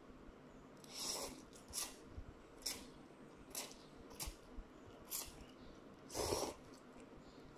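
A person slurping and sucking in instant noodles in a series of short slurps, about one a second. The longest and loudest slurp comes about six seconds in.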